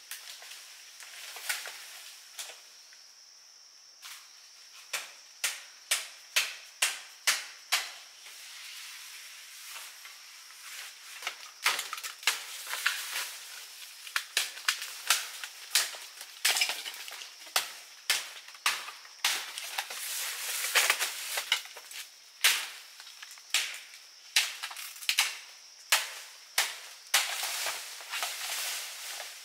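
Bamboo being chopped with a blade: a long run of sharp, crisp strikes, often about two a second, starting about five seconds in.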